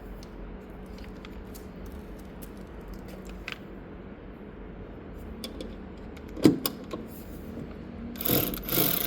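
Tools being handled: scattered small clicks and one sharp knock about six and a half seconds in, then a louder rattle near the end, over a steady low hum.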